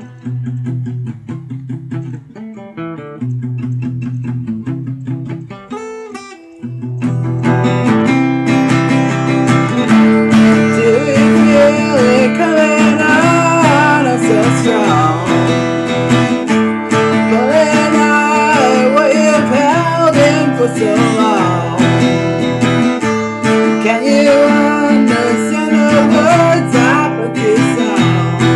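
Acoustic guitar played quietly for about seven seconds, then strummed harder and louder, with a man singing over the louder part.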